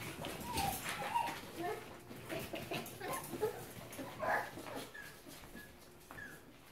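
Keeshond puppies whimpering and yipping in short squeaks while they play-wrestle, with some scuffling. The squeaks thin out and grow quieter near the end.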